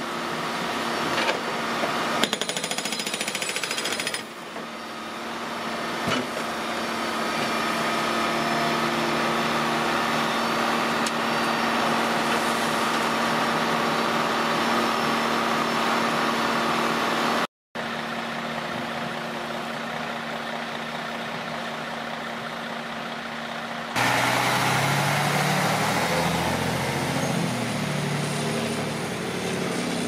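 Hydraulic breaker on a Case backhoe hammering asphalt pavement: a fast, continuous rattling pound over the machine's running diesel engine. Near the end it gives way to a dump truck's diesel engine pulling away.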